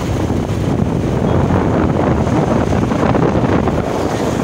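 A steady rush of wind buffeting the microphone on a moving motorcycle, with the motorcycle's engine and road noise beneath it.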